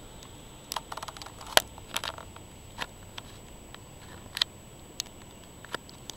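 Irregular sharp clicks and ticks, about eight of them, the loudest about a second and a half in, over a faint steady hiss with a thin high whine.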